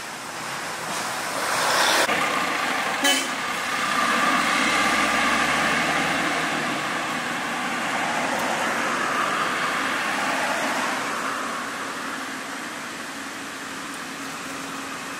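Road traffic: lorries and cars driving past, engine and tyre noise that swells about two seconds in and again for several seconds from about four seconds, with a single sharp knock about three seconds in.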